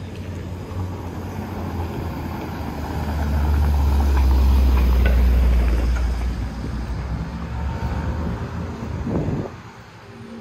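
A motor vehicle passing close by: a low rumble that builds to its loudest midway, fades, and drops away sharply near the end.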